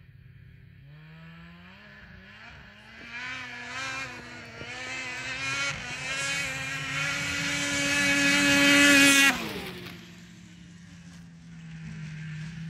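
2003 Ski-Doo Rev 600 HO snowmobile's two-stroke twin, breathing through an MBRP aftermarket exhaust can, approaching at speed with its pitch rising and wavering under throttle, loudest as it passes close by about nine seconds in. At the pass the sound drops off suddenly and falls in pitch, then goes on as a fainter drone as the sled rides away.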